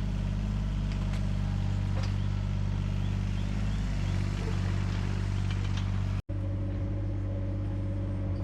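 Mini excavator's diesel engine running steadily under work, with a few light clicks; the sound breaks off for an instant about six seconds in, and after that a higher steady whine joins the engine.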